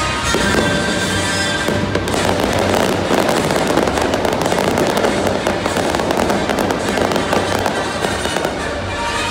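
Aerial fireworks bursting, with a dense crackling of firework stars that dominates from about two seconds in, over music playing behind.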